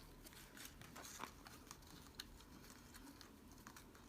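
Faint rustling and a scattered few small ticks of paper and tie being handled as two tie ends are worked through a loop on a paper tag.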